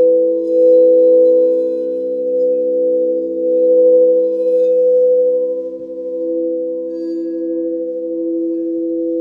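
A 432 + 528 Hz sound-healing frequency drone: several sustained tones layered together, slowly swelling and fading. Faint high shimmering notes sound briefly near the start and about four and a half seconds in.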